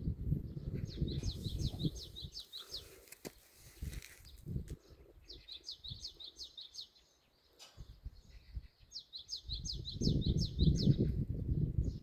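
A songbird sings three phrases, each a quick run of about eight sharp high notes, about four seconds apart. Wind rumbles on the microphone at the start and again near the end.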